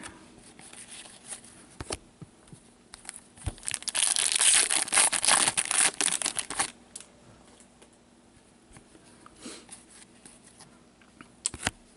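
Foil wrapper of a hockey card pack being torn open and crinkled, a dense crackling run of about three seconds starting some three and a half seconds in. A few faint clicks before and after it.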